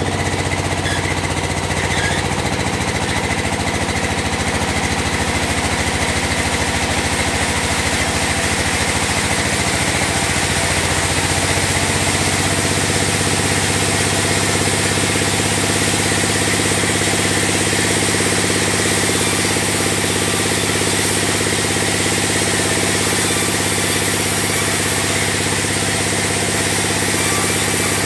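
Vertical band sawmill running: a steady mechanical hum. A low pulsing in the hum evens out about twelve seconds in.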